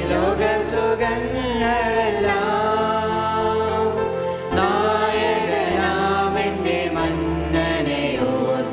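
Voices singing a Malayalam Christian hymn over steady instrumental accompaniment, with long held, wavering notes.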